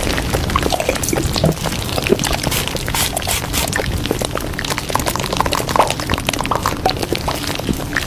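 Running water trickling and bubbling steadily, dotted with many small plinks and drips.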